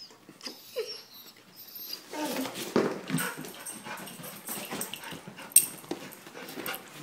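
Dog making a short whine and then snuffling and huffing noises close to the microphone, with rustling from being handled.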